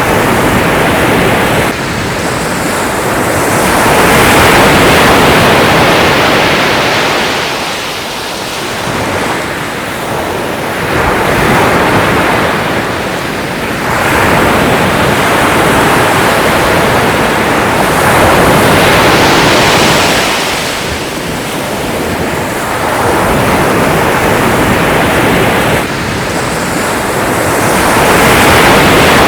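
Sea waves breaking and washing in, swelling and ebbing every few seconds, with an abrupt drop in level twice.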